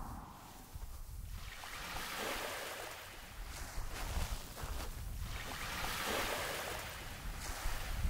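Sea waves washing ashore, swelling and fading several times, with wind rumbling on the microphone.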